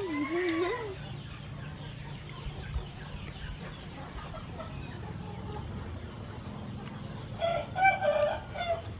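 Domestic chickens: a rooster's crow trailing off in the first second, then a short burst of clucking calls about eight seconds in.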